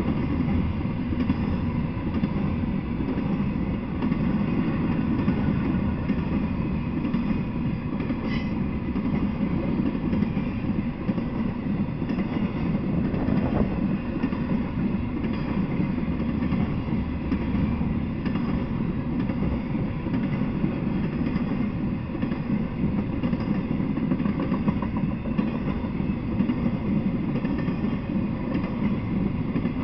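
Intermodal freight train rolling past, its flatcars loaded with truck trailers and containers: a steady, unbroken low rumble of wheels on rail.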